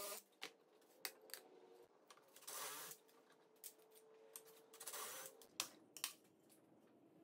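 Near silence, with a few faint scattered clicks and taps.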